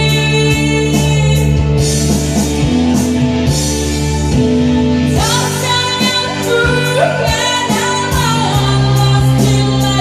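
Music with singing: a song with steady held instrumental chords and a regular beat, a sung melody coming in about five seconds in.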